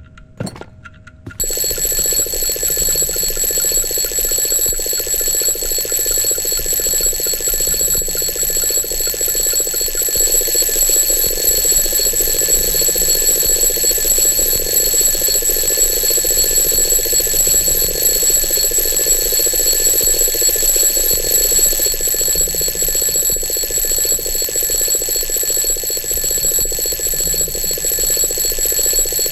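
Alarm clock ringing continuously and loudly, starting about a second and a half in after a short click.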